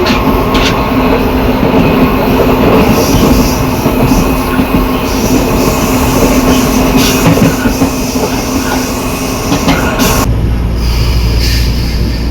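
Metro train traction motor and inverter running under acceleration, with a steady tone and an unusual growl from the reduction gearbox. About ten seconds in, the higher sounds cut off abruptly, leaving a low rumble.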